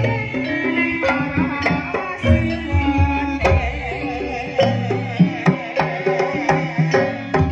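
Live Javanese folk band music: an electronic keyboard and metallophones (saron) play a melody over sharp, quick hand-drum strokes.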